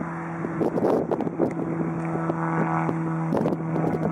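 Single-engine light aircraft's piston engine and propeller running at a steady speed as it rolls on a grass strip, a steady droning note, with wind buffeting the microphone in gusts.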